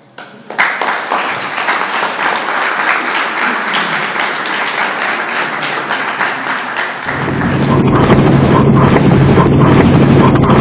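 An audience applauding, a dense patter of many hands clapping, starting about half a second in. About seven seconds in, louder outro music takes over, with a held low bass note and a regular pulse.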